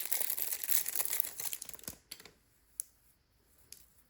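Plastic packaging crinkling and rustling as it is handled for about two seconds, then dying away, with one sharp click a little under three seconds in.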